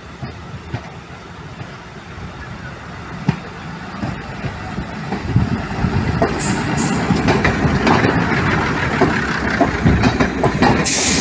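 British Rail Class 108 diesel multiple unit running through a level crossing: engine noise and wheels clicking over the rail joints, growing louder from about five seconds in as it nears and passes. There are short high hisses at about six and a half seconds and again near the end.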